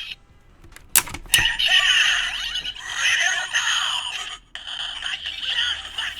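DX Bugster Buckle henshin toy belt with the Dangerous Zombie Gashat, clicked about a second in and then playing its electronic sound effects and music through its small built-in speaker.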